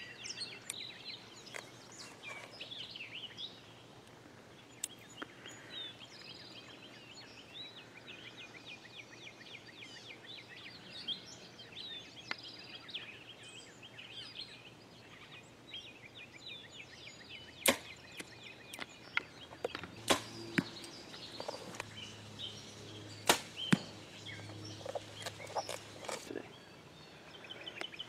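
A compound bow being shot: three sharp, loud snaps a few seconds apart in the second half, over birds chirping.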